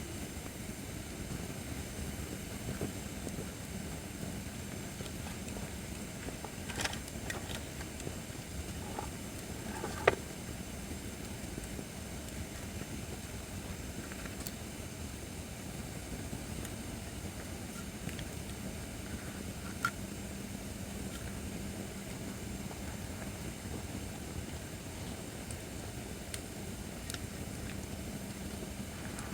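Acacia firewood burning in a fire pit: a steady low rushing noise with a few sharp crackles, the loudest about ten seconds in.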